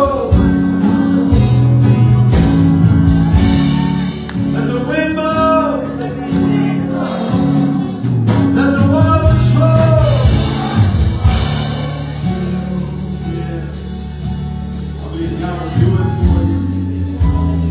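Gospel worship music: sustained keyboard chords under long, drawn-out sung vocal phrases.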